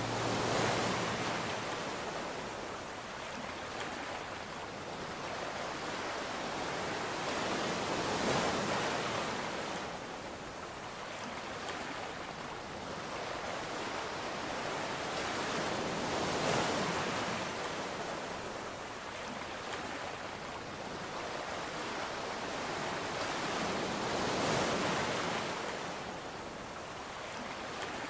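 Sea waves washing in, an even rushing that swells and fades roughly every eight seconds.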